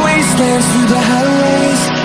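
Background music, a song whose melody line glides up and down over sustained notes.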